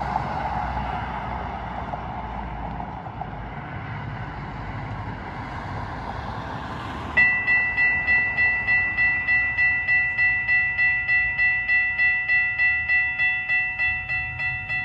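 Road traffic noise, then about seven seconds in a railroad crossing warning bell starts ringing: a bright metallic ding repeating evenly at a little over two strikes a second, the signal that the crossing has activated for an approaching train.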